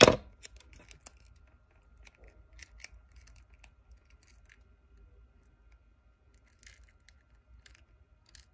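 A sharp knock at the very start, then scattered light snips, clicks and crinkles of small scissors cutting clear tape and tape being stuck around a small paper cup.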